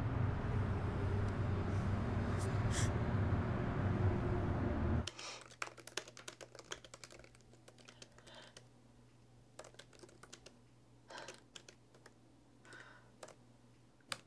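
About five seconds of steady outdoor street noise with a low rumble, which cuts off suddenly. After it comes a quiet room with scattered keystrokes on a laptop keyboard, in a few short runs.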